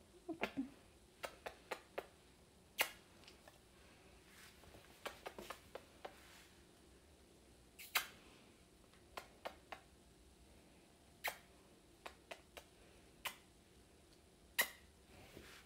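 Faint, sparse clicks and taps of a hand-held phone being handled, about a dozen of them at irregular intervals over quiet room tone.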